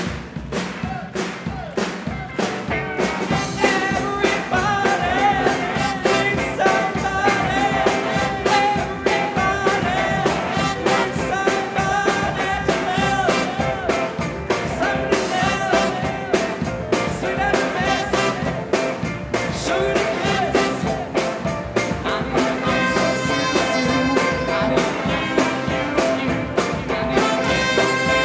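A live soul band playing: a steady drum beat, electric guitar and a horn section of trumpet, saxophone and trombone, with a male singer on microphone. The full band grows louder and denser about three seconds in.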